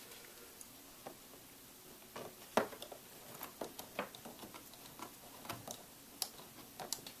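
Small screwdriver driving a screw into a laptop's plastic screen bezel: light, irregular clicks and ticks, with one sharper click about two and a half seconds in.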